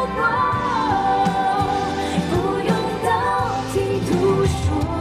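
A woman singing a Mandarin pop song into a handheld microphone over live band accompaniment, in long held notes.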